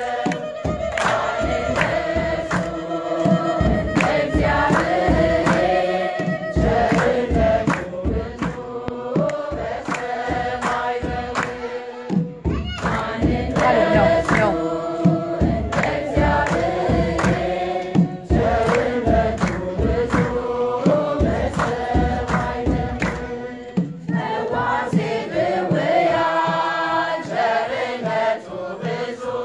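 Ethiopian Orthodox choir of men and women singing a mezmur, with hand claps keeping a steady beat.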